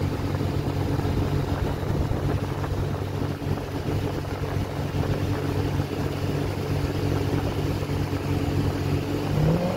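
Motorboat engine running steadily underway, a low even drone, with the rush of wind and water over it.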